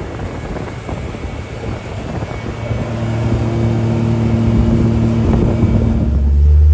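Side-by-side utility vehicle driving, with wind rushing over the microphone and rumble at first. A steady engine hum comes up about halfway through and grows louder, then changes to a deeper, louder drone near the end.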